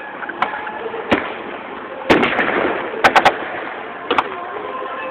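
Gunfire: scattered single shots, a louder blast about two seconds in, then a quick run of three shots about a second later and one more shot near the end.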